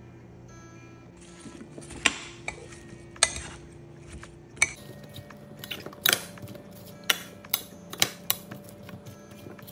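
Metal spoon stirring apple slices in a ceramic baking dish, clinking and scraping against the dish a dozen or so times at an uneven pace.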